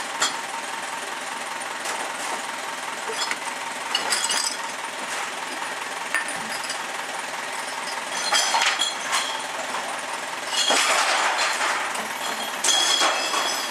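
Glass bottles and containers crashing and clattering as recycling crates are tipped by hand into the side compartments of a split-compartment recycling truck, in several loud bursts over the truck's engine running steadily at idle.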